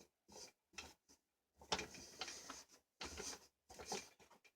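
Faint handling noise: the cloth t-shirt bag and plastic vacuum cleaner parts rustling, rubbing and clicking in short irregular bursts.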